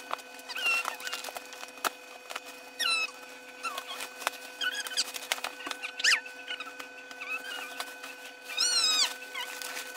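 Plastic packaging crinkling and rustling as it is pulled and torn off, with several short, high-pitched squeals from a toddler, the longest and loudest near the end.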